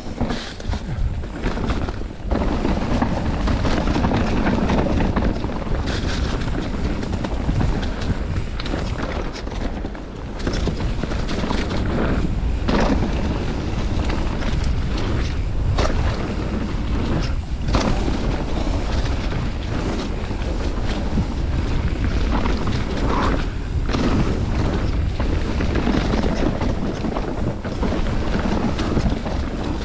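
Mountain bike riding down a dirt forest trail: continuous rumble and rattle of tyres rolling over dirt, roots and leaves, with wind buffeting the microphone and scattered sharp knocks from bumps.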